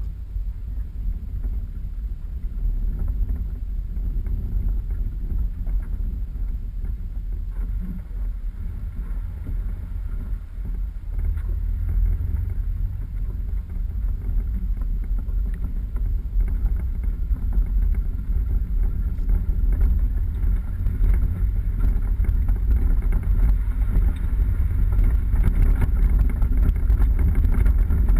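Off-road 4x4 vehicle driving: a steady low engine and drivetrain rumble, with wind noise, getting gradually louder.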